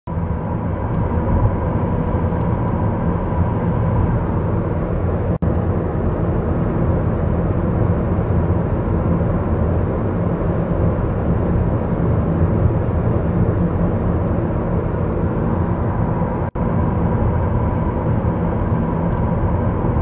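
Cabin road noise of a 2010 Toyota Camry SE cruising at 45 mph: a steady rush of tyre and road noise with the 2.5-litre four-cylinder engine humming at low revs underneath. The sound cuts out for an instant twice.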